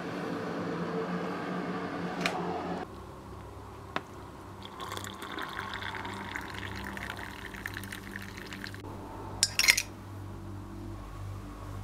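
Plastic electric kettle running with a steady heating rumble, a click as it shuts off, then hot water poured from it into a ceramic mug for about four seconds. Near the end, a few quick clinks of a metal spoon against the mug.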